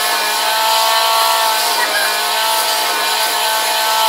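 Vacuum cleaner running with a steady motor whine, its hose on a hole in the bottom of a container, sucking the air out so the balloon stretched over the container stays drawn open inside it.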